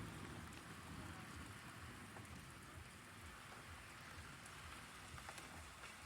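Steady rain falling, with a few sharper drop ticks scattered through it.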